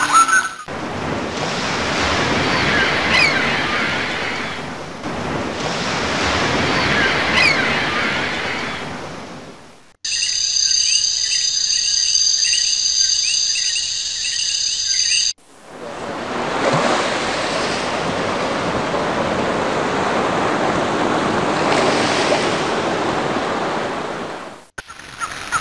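Sound-effect clips of surf: waves washing in two long surges with a few faint high chirps, then a few seconds of steady high-pitched chirring tones, then surf again.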